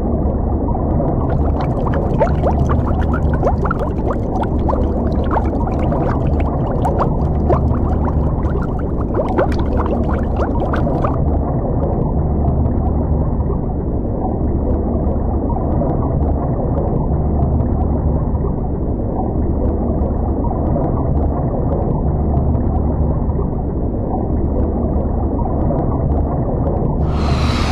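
Underwater ambience sound effect: a steady muffled low rumble that swells slowly, with fine crackling bubbles fizzing over it for the first ten seconds or so. A sudden hiss comes in near the end.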